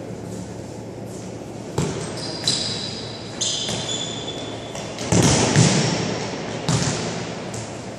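A futsal ball being kicked and bouncing on a wooden sports-hall floor: a series of sharp knocks, the loudest cluster about five seconds in, each ringing on in the hall, with brief high squeaks of shoes on the floor in between.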